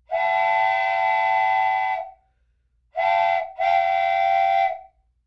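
Steam whistle blowing three blasts: one long of about two seconds, then a short one and a longer one.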